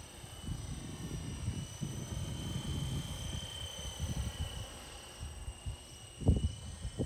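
Electric motor and rotor whine of a Hyperfly Apache no-tail-rotor RC helicopter in flight, a steady high-pitched whine that wavers slightly in pitch as it passes. Gusty wind rumbles on the microphone throughout, with one louder bump of wind noise about six seconds in.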